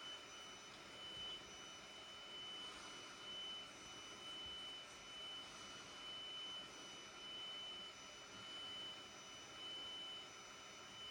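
Bambu Lab A1 3D printer running: a faint, steady high whine with the level swelling and easing about once a second.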